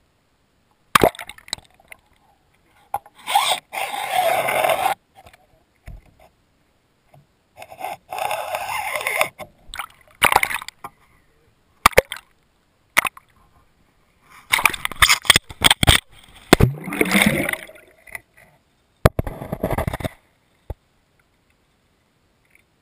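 Lake water splashing and gurgling against a GoPro's waterproof housing as it is pulled through the water on a fishing line. Several bursts of sloshing with sharp knocks come as it breaks the surface, with near-silent gaps between, and it goes quiet near the end once it is under water.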